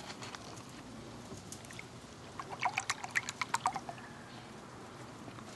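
Heavy cream poured from a pint carton into a bowl of milk, glugging in a quick run of about a dozen gurgles for a second and a half midway.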